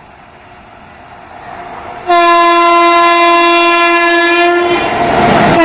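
Indian Railways express train approaching at speed: its rumble grows, then the locomotive horn sounds one long steady blast of about two and a half seconds starting about two seconds in. The louder rush of the train follows, and a second horn blast begins right at the end.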